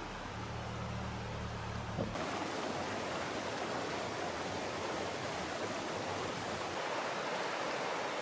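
Steady rushing of river water, which starts abruptly about two seconds in. Before that there is a fainter low, steady hum.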